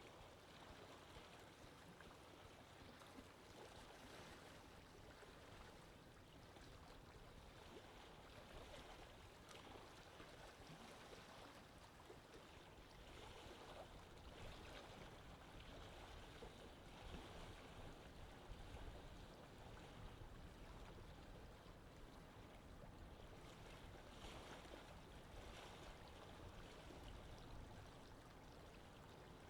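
Faint sea ambience: water washing steadily with a low rumble underneath, swelling gently now and then.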